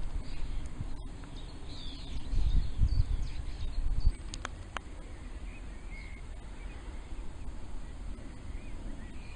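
Wind gusting against the microphone, strongest in the first four seconds and then dropping to a steadier, quieter hiss, with faint chirps of small birds in the distance and two sharp clicks about four and a half seconds in.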